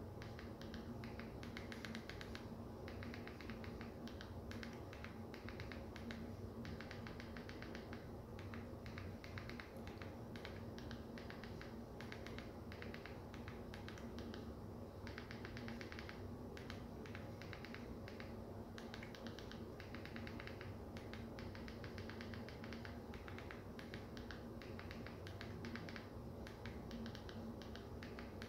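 Quick runs of small plastic button clicks from a Fire TV Stick remote being pressed over and over to navigate and type a search, over a faint steady hum.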